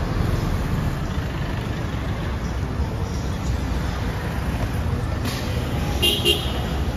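Steady road traffic going by, with a vehicle horn tooting twice in quick succession near the end.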